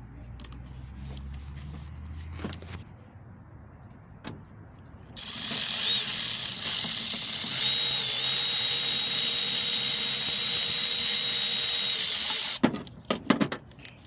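Cordless electric ratchet running steadily for about seven seconds with a fixed whine, turning a gear puller's forcing screw to draw a part off a driveshaft. Its motor stops suddenly, followed by a few sharp metallic clicks and clatter.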